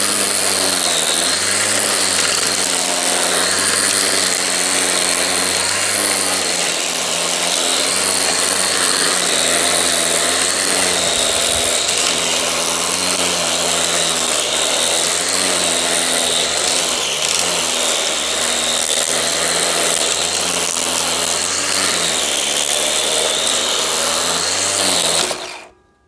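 Black & Decker cordless electric string trimmer running steadily as it cuts grass along a concrete edge, a motor whine with a high hiss whose pitch wavers slightly. It cuts off abruptly near the end.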